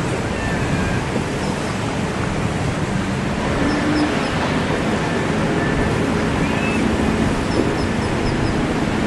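Steady rushing noise of choppy sea and breaking surf.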